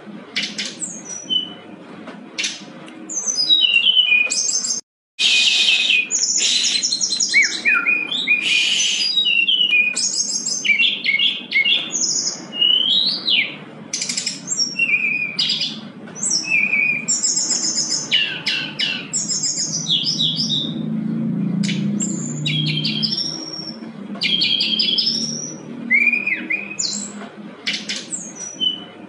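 Brown-chested jungle flycatcher singing energetically: a long, varied run of short whistled phrases, quick rising and falling notes and rapid trills. The sound cuts out briefly about five seconds in.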